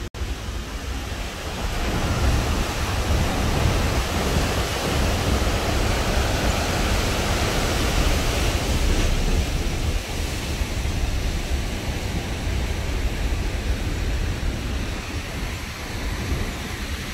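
Fast-flowing canal water rushing, a steady hiss of turbulent white water, with wind buffeting the microphone as a low rumble.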